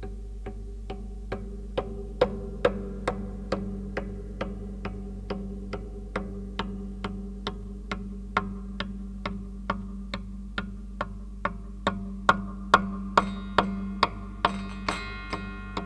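Mouse-walk sound effect: evenly spaced sharp clicks, about two and a half a second, over a steady low hum. Near the end a cluster of ringing, jangly tones joins the clicks.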